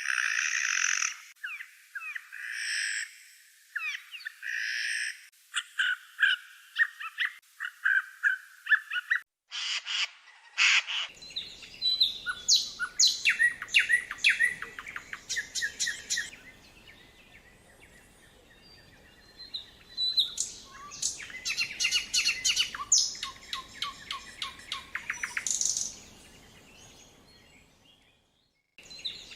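Several wild songbirds singing in a May woodland, with overlapping chirps, trills and whistled phrases. The recording breaks off briefly about nine seconds in and again near the end, each time going on with a different stretch of song.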